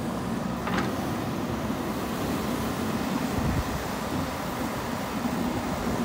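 JCB backhoe loader's diesel engine running steadily while it works soil, with one brief knock under a second in.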